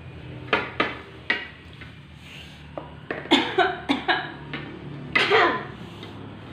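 Metal fork and plastic spoon knocking and scraping in a plastic bowl of noodles: a few short sharp clicks, a quick cluster of them around the middle, and a longer noisy sound a little past five seconds, over a steady low hum.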